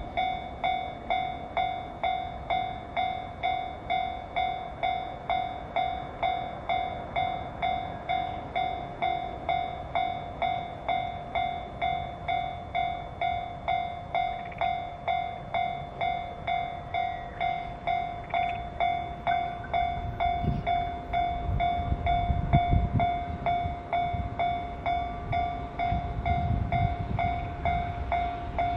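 Japanese railway level-crossing warning bell ringing steadily, about two electronic dings a second, with the crossing closed for an approaching train. From about twenty seconds in, irregular low rumbling swells in under it.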